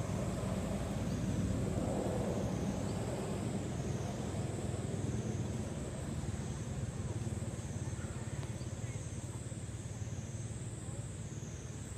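Outdoor background: a steady low rumble, swelling slightly about two seconds in, with a thin high-pitched hiss above it that wavers in level about once a second.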